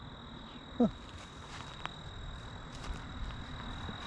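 Insects droning steadily at one high pitch, typical of crickets, over faint outdoor background noise. A brief falling voice-like sound about a second in, and a few faint ticks.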